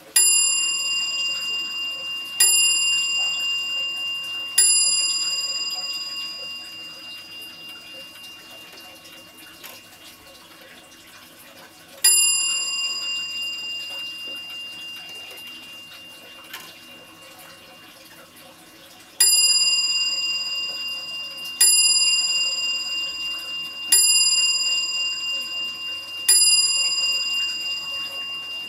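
Antique Dutch Zaandam-style twin-weight 8-day wall clock striking on its bell as its hands are turned by hand: three slow strikes, a single strike, then four strikes, each note ringing on as it fades.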